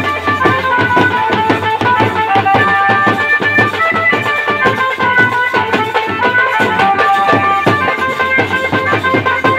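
Live folk music: a harmonium playing a melody in held notes over a fast, steady beat of two-headed drums struck with sticks.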